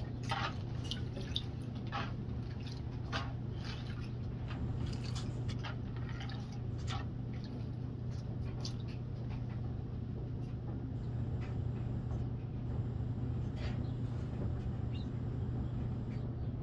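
Water dripping and splashing as a plastic gold-panning classifier of paydirt is dipped into and lifted out of a tub of muddy water, the drips coming thick in the first half and sparser later. A steady low hum runs underneath.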